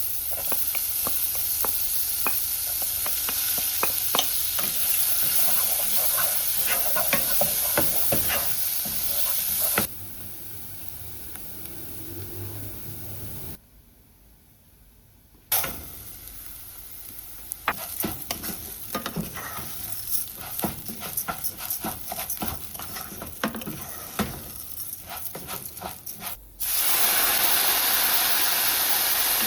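Food sizzling as it fries, with the scrape and clicks of a utensil stirring it. The sizzle drops away about ten seconds in, leaving quieter clicks and knocks and a brief near-silent gap. It comes back loud and steady near the end.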